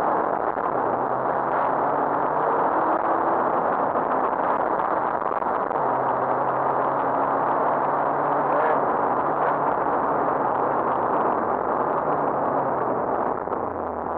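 Rally car engine running at speed under heavy road and wind noise, heard from inside the cabin. The engine note shifts in pitch a few times.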